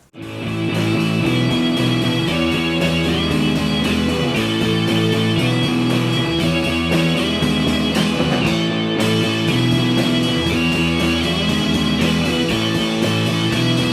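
Background music: guitar-led rock with strummed electric guitar.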